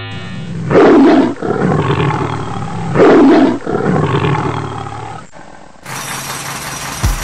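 Lion roar sound effect in the style of the MGM logo, two roars about two seconds apart, each trailing off into a rumble.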